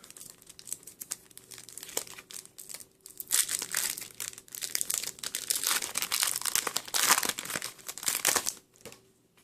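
Foil Yu-Gi-Oh! booster pack wrapper crinkling as it is torn open by hand, faint at first and loudest from about three seconds in until shortly before the end.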